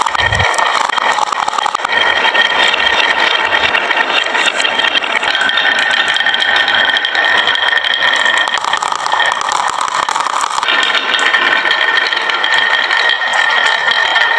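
Toy vehicles and marbles rolling down a marble run's slope tracks, making a loud, continuous rattling clatter with a steady ringing hum of rolling.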